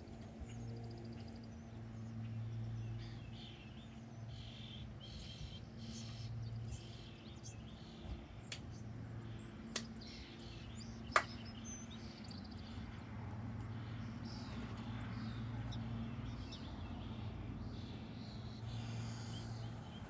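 Small backyard birds chirping, with scattered short calls over a steady low hum. Three sharp clicks come near the middle.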